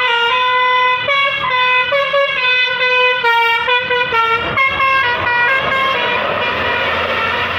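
A bus's telolet basuri horn, a multi-tone musical air horn, playing a quick tune of short stepped notes. About six seconds in the tune ends and a loud, even noise takes over.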